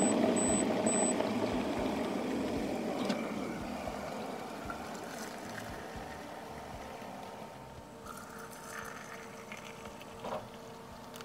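Stainless electric kettle boiling, its rumble fading over the first few seconds, then hot water poured from the kettle into ceramic mugs.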